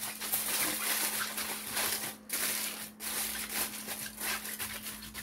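Aluminium foil crinkling and crackling as gloved hands crumple it and press it down around the rim of a plastic container, in an irregular run with brief pauses about two and three seconds in.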